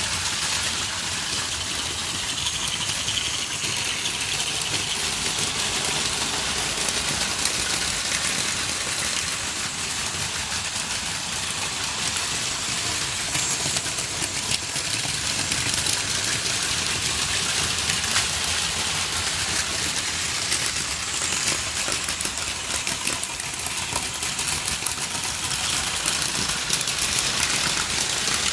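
Several battery-powered Plarail Advance toy trains running together on plastic track: a steady whir of small electric motors with a dense clicking clatter of wheels and plastic rail.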